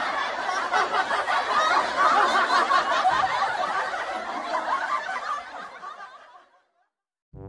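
A group of people laughing and snickering together, many voices at once, fading out about six seconds in.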